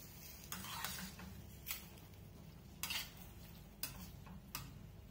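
Slotted metal spatula stirring lobster meat and onions in a small stainless-steel frying pan, scraping and clacking against the pan about five times.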